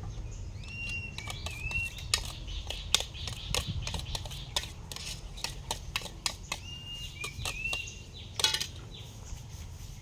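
Irregular sharp clicks and knocks from kitchen work with utensils and dishes. A bird gives a short call twice, about half a second in and again near seven seconds, over low outdoor background noise.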